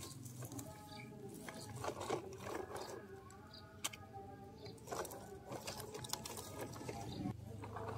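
Plastic toy dump truck rolled over stony ground: scattered clicks and crunches of gravel under its wheels. A repeated pitched call, about a second long, sounds every couple of seconds in the background.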